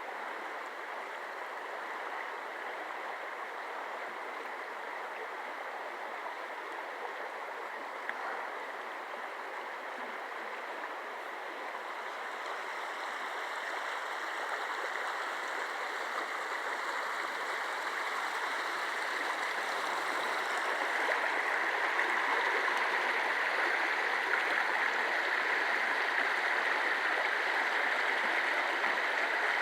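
Creek water running fast after heavy rain, a steady rushing and gurgling that grows gradually louder over the second half.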